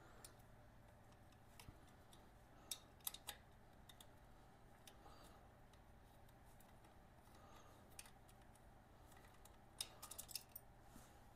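Faint, scattered small metal clicks and taps as the baffle is worked loose from a motorcycle's aftermarket exhaust muffler, with a quick run of clicks near the end.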